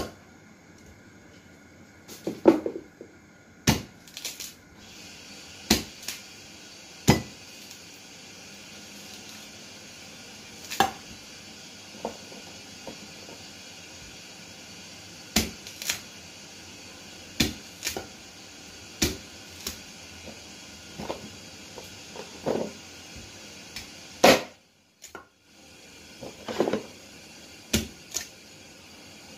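Cleaver chopping corn cobs into chunks on a round chopping block: about twenty sharp chops at uneven intervals, usually one to two seconds apart.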